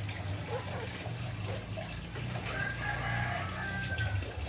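A rooster crowing once, one long call starting a little past halfway, over a steady low hum.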